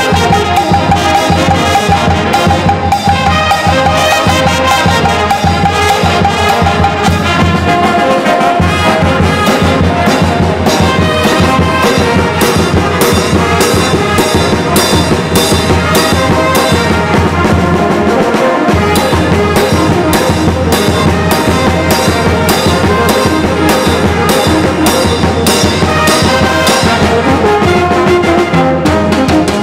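Brass band playing live: tubas, trumpets and trombones together over a steady beat.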